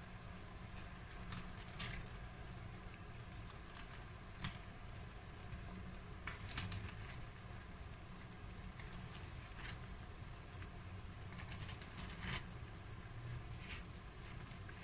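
Spiced sugar syrup boiling in a stainless steel pan, a faint steady bubbling sizzle. A short splash comes every two seconds or so as a fried koesister is dropped into the syrup.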